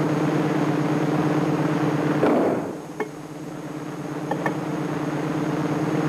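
Steady low electrical-machinery hum of the submarine's reactor-room ambience. About two seconds in comes a short rush of noise and a sharp metallic clank as the bulkhead hatch door shuts, after which the hum carries on more quietly with a few faint clicks.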